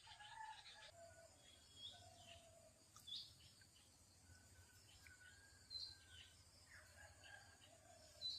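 Faint outdoor birdsong: several small birds chirping with short, scattered calls, over a low steady hum.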